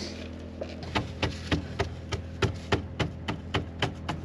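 Quick, evenly spaced hammer taps, about three to four a second, starting about a second in. Under them runs the steady hum of a small portable generator charging the boat's batteries.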